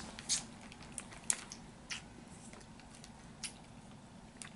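A plastic candy bag crinkling as a piece of sour candy is taken out: scattered sharp crackles, most in the first two seconds, then a few faint ones, along with soft chewing.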